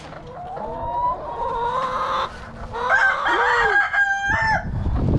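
Two long rooster crows one after the other, each rising at the start and then held. A low rumble comes in near the end.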